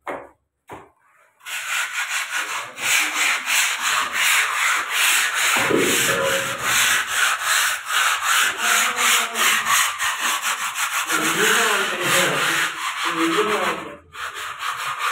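Hand tool scrubbing back and forth on a rough cement wall in fast, rapid strokes: a harsh, steady scratching that starts about a second and a half in and breaks off briefly near the end.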